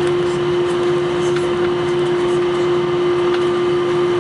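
Steady cabin noise inside an Airbus A321 taxiing on idle engines: a constant hum and hiss with one strong, steady tone.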